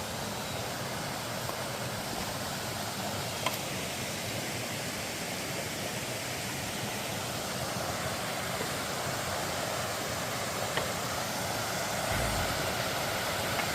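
Mountain valley stream rushing in a steady, even flow of water, with a few faint ticks and a short low thump near the end.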